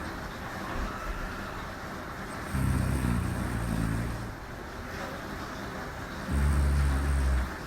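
A woman snoring in her sleep: two low-pitched snores, one about two and a half seconds in and a shorter one near the end, coming at an even pace over a steady background hiss.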